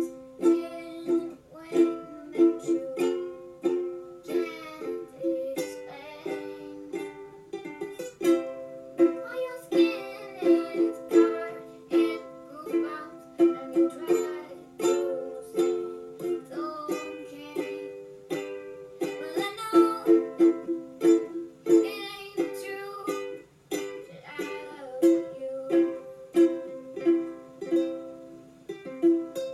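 Background music: an upbeat strummed ukulele tune with a steady rhythm.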